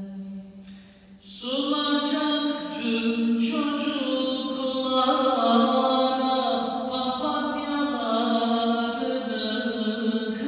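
A man singing a kaside, a Turkish Islamic devotional hymn, solo and unaccompanied. A long held note dies away about a second in, then a new phrase begins with slow, ornamented turns of melody.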